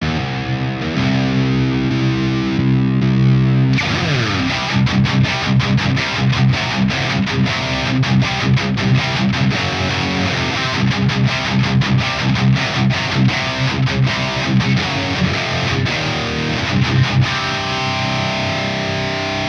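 Electric guitar through a high-gain EVH 5150 III-style amp simulation, heavily distorted. It holds chords for about four seconds, slides down, then plays a fast, tight palm-muted chugging riff with a few ringing notes near the end.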